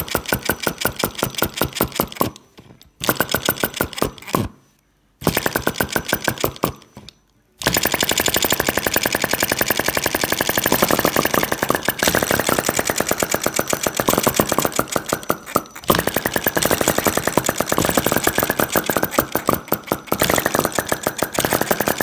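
Home-machined fire eater (flame-licker) engine running with a rapid, even clatter of pops. It slows and stops three times in the first eight seconds, picking up again each time, then runs on steadily.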